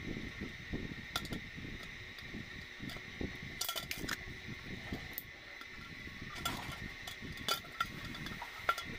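Light metal clinks and knocks as a steel bucket and its wire carrying handle are handled and the handle is worked into a plastic lug on the rim. A faint steady high whine runs underneath.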